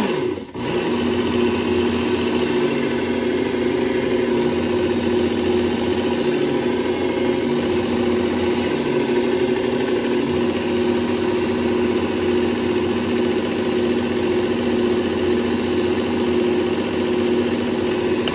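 Work Sharp belt sharpener's motor running steadily while the paper-cutter blade is laid flat on the belt to knock the burr off, with two stretches of added high grinding hiss between about four and ten seconds in. The motor cuts off at the very end.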